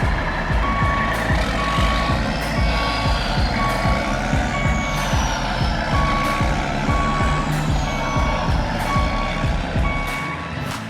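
Truck reversing alarm beeping steadily, about one beep a second, over a heavy engine rumble, with a faint whine rising and falling in the middle.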